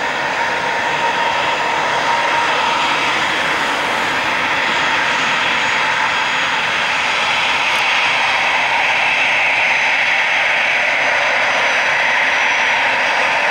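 Airbus A320-214's twin CFM56-5B turbofan engines running at taxi power: a steady jet whine and rush that grows a little louder as the airliner taxis closer.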